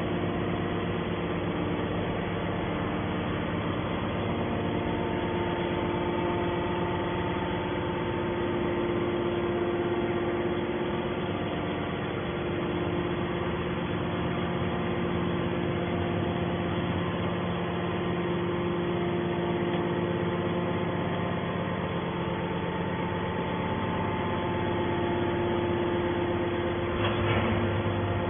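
Hydraulic baler's power unit (electric motor and hydraulic pump) running with a steady hum, with a brief knock near the end.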